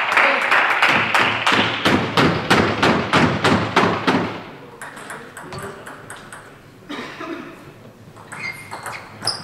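Spectators clapping in an even rhythm, about five claps a second, which stops about four and a half seconds in. Near the end, a table tennis ball is struck and bounces on the table a few times, with short sharp pings.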